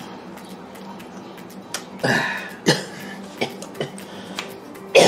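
A person coughing: two short coughs about two seconds in, and another at the very end.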